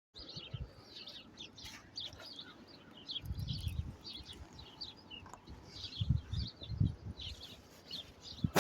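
Small birds chirping, many short high chirps in quick succession, with a few low rumbles about three seconds in and again around six to seven seconds in.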